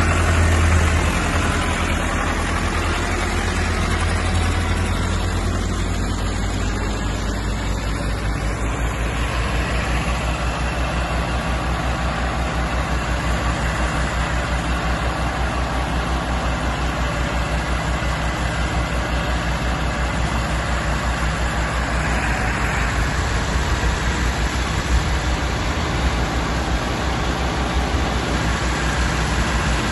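Massey Ferguson 385 tractor's diesel engine running steadily under load as it powers a thresher, with the low, even hum of the engine and the thresher's churning mixed in.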